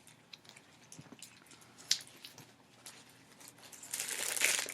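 Packaging and stickers being handled: a few light clicks and taps, then a louder crinkling rustle near the end as the packaging is moved.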